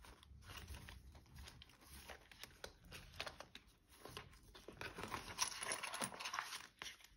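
Paper banknotes and cash envelopes rustling and crinkling as they are handled, with scattered small clicks and taps.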